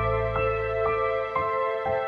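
Soft background music: sustained notes over a low held bass, with a new melody note about twice a second.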